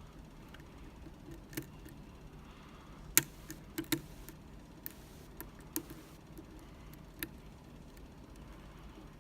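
Sharp, irregular metallic clicks and ticks of a lock pick and tension wrench working the pins inside a Medeco lock, about half a dozen, the loudest about three seconds in.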